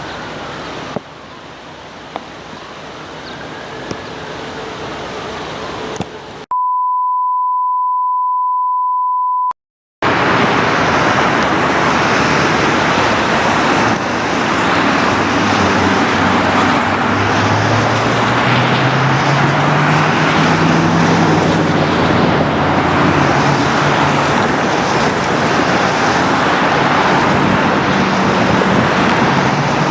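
Road traffic noise with a faint wail rising and falling twice. Then a steady beep for about three seconds and a moment of silence, then loud, dense traffic noise with vehicles going by to the end.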